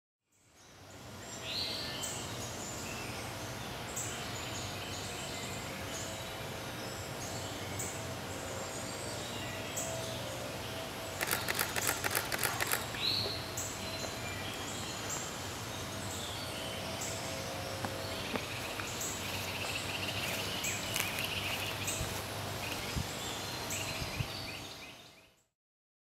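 Outdoor ambience: a steady background hum and hiss with scattered short bird chirps. About halfway through there is a quick run of sharp clicks lasting just over a second, roughly ten a second.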